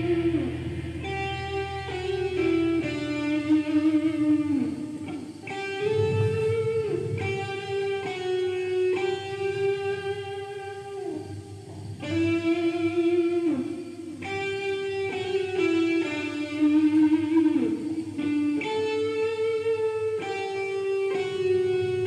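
Godin Redline HB electric guitar, freshly given a pro setup, playing a lead melody of long sustained single notes, with a few notes gliding down in pitch.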